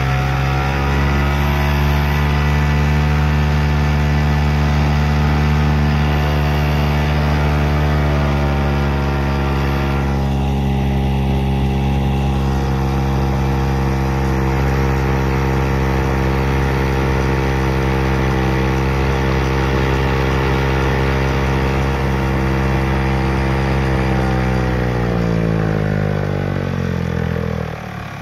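Ted Williams 7.5 hp air-cooled outboard motor running at a steady high throttle, under load pushing a 12 ft jon boat. Its revs climb a little at the start, hold steady, then drop away over the last few seconds.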